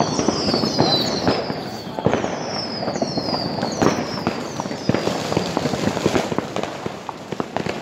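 New Year's Eve fireworks and firecrackers going off all around, a dense run of sharp bangs and cracks. Over the first five seconds a series of high whistles, each falling in pitch, repeats about once a second.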